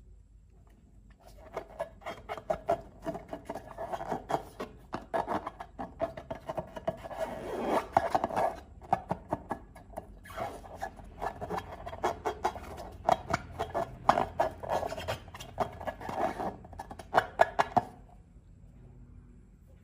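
Slime being squished and worked by hand: a dense run of wet clicks and crackles that starts about a second and a half in and stops a couple of seconds before the end.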